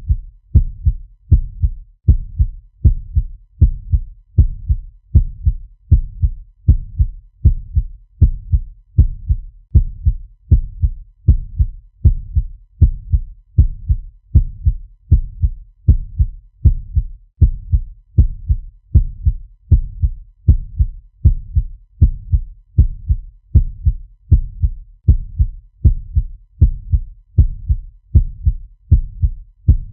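Heartbeat sound effect: a steady, even rhythm of paired low thuds (lub-dub), looped without change.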